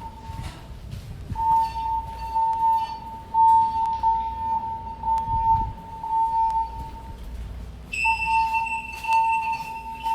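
Building fire alarm's evacuation alert tone sounding between voice messages: a steady high-pitched tone repeating in short pulses, pausing twice. About eight seconds in, a second, higher-pitched tone joins it.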